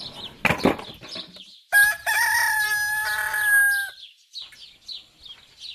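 A rooster crowing once, one long steady call of about two seconds, with small birds chirping in quick, repeated high notes around it.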